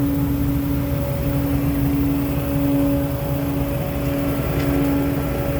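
Freshly rebuilt 14-litre Detroit Diesel Series 60 inline-six engine running steadily: a low rumble with a steady tone over it.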